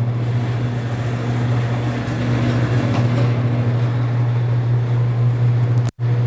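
Bluedog BWS-80 HD electric wire stripping machine running with a steady, loud hum while a 500 MCM cable is fed through its rollers and blades. The sound cuts out briefly near the end.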